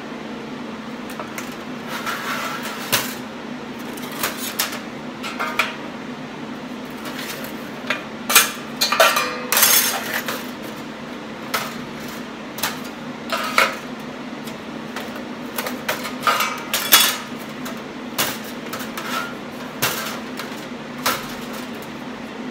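Sheet-steel pieces and hand tools clanking and scraping on a steel welding table: irregular metallic knocks with short ringing, busiest about 8 to 10 seconds in and again around 16 to 17 seconds, over a steady low hum.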